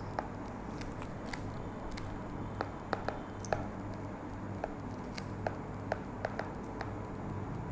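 Light, irregular clicks and taps of a stylus on a tablet screen as words are handwritten, over a faint steady low hum.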